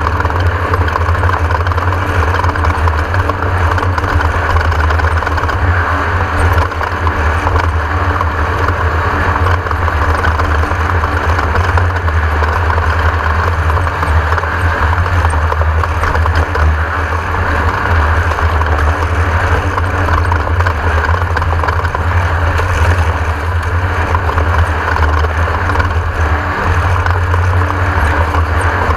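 Class 1600 off-road race car's air-cooled Volkswagen flat-four engine running, a loud, steady drone that holds even throughout.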